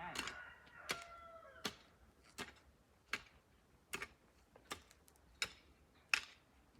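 A steady series of sharp chopping strikes, about one every three-quarters of a second. A chicken calls briefly in the first second or so.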